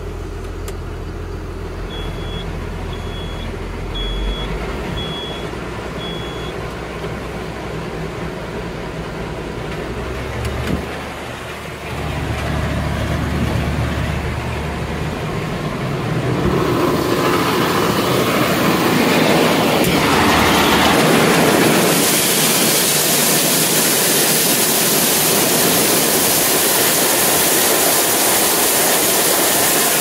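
Tractor engine running, heard from inside the cab, with five short electronic beeps a few seconds in. About halfway through, a rushing hiss builds and becomes loud and steady: shelled corn streaming into a steel grain bin. It cuts off at the very end.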